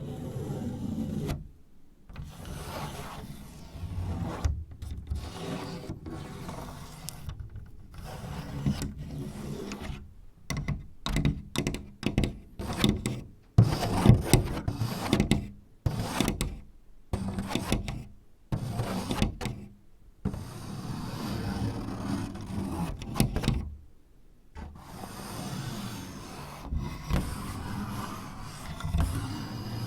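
Fingertips scratching and rubbing on a paper sliding door (shoji), in stretches broken by short pauses, with runs of quick tapping in the middle.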